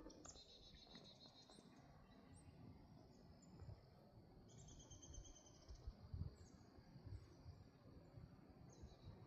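Faint bird chirps with two rapid high trills, one about a second in and one about halfway through, over a faint low rumble.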